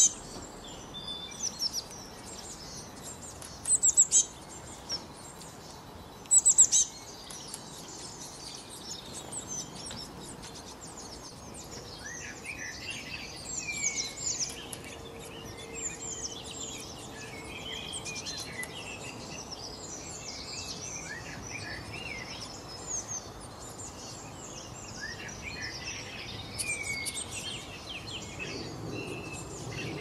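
Several songbirds chirping and singing together in a busy mix of short high chirps and trills, with a few louder sharp calls in the first seven seconds.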